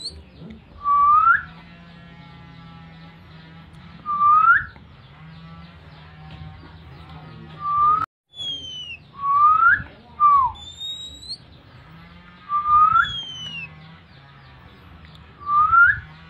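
Repeated short, rising whistled calls, a 'siulan panggil' call whistle used to lure oriental magpie-robins (kacer) in breeding condition. A loud note comes every three seconds or so, with fainter, higher, falling whistles between them and a low hum underneath.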